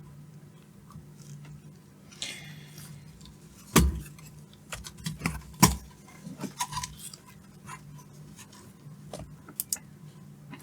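Scattered light clicks and metallic clinks of tools and a circuit board being handled on a workbench, with two louder knocks about four and six seconds in, over a steady low hum.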